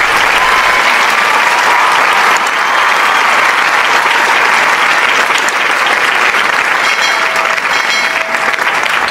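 Audience applause, steady and sustained.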